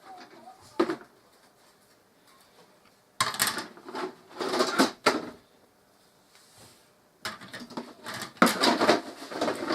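Plastic scenery sprues and their packaging being handled, rustling and clattering in two long stretches after a couple of light clicks.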